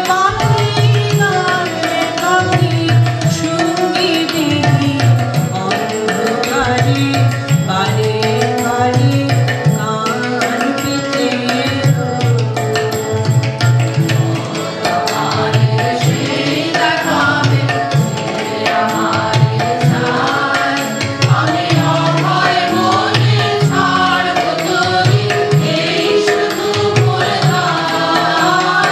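Baul-style Bengali song performed live: singing voices carrying the melody over a steady hand-drum rhythm.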